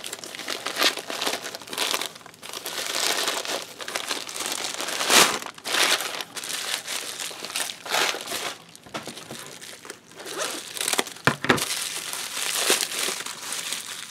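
Plastic packaging crinkling and rustling as artificial flowers are unwrapped from a pink plastic bag and a clear plastic sleeve, with a few sharper crackles.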